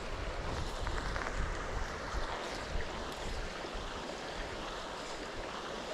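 Shallow, gravelly trout stream running steadily, with wind buffeting the microphone, strongest in the first couple of seconds.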